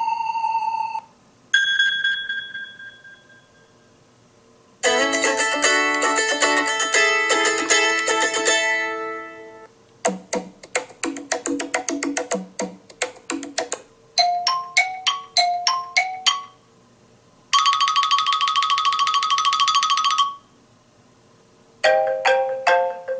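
A run of iPhone iOS 14 ringtones played one after another, each lasting a few seconds with short gaps between. In turn there is a single bell-like strike fading out, a dense chiming run of notes, quick plucked notes, a repeating two-note figure, a steady trilling buzz, and a repeating chime near the end.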